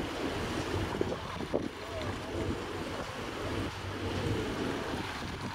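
Wind buffeting the microphone over steady outdoor noise, with faint distant voices and a few soft knocks.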